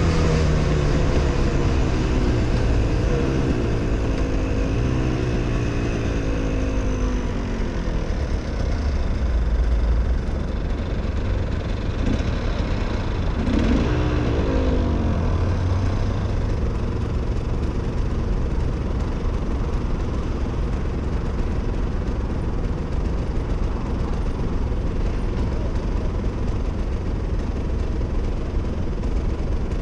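Husqvarna WRE 125's two-stroke single-cylinder engine under way with its revs falling as the bike slows. About 13 seconds in the revs rise and fall briefly, and from about halfway it idles steadily with the bike at a standstill.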